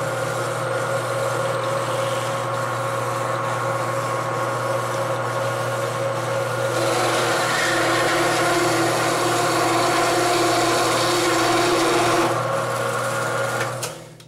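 Metal-cutting bandsaw running steadily with its blade sawing through a steel screwdriver shank. The cut grows louder and harsher about seven seconds in, eases about twelve seconds in, and the saw winds down and stops near the end.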